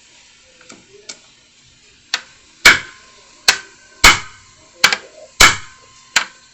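Hammer blows on a hand impact screwdriver set in a seized flat-head bolt of a Johnson 25 HP outboard gearcase: two light taps about a second in, then seven sharp strikes roughly every 0.7 s. Each blow shocks the stuck bolt loose by a tiny fraction of a turn.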